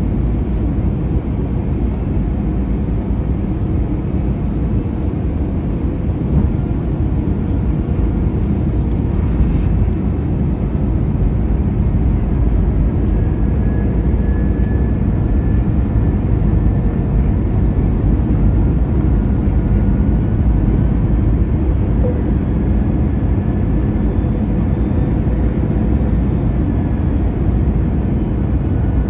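Steady low rumble of a Delta Airbus A321's engines and airflow heard inside the cabin on its approach to landing, with faint high whines drifting slowly in pitch.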